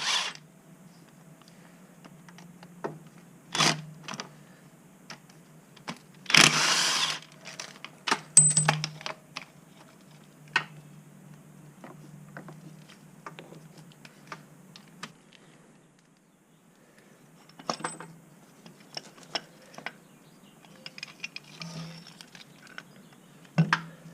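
Hand tools and bolts clinking and clanking against metal while an AC compressor is unbolted from an engine, in scattered sharp clicks. A louder rasping burst lasts about a second roughly six seconds in.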